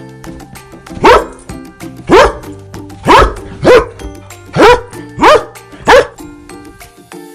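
A dog barking seven times in single, sharp barks about half a second to a second apart, over background music with steady held notes.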